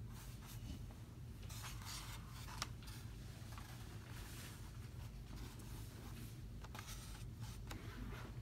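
Paintbrush stroking acrylic paint onto a stretched canvas: faint brushing swishes at irregular intervals, with a short click a little over two and a half seconds in, over a low steady hum.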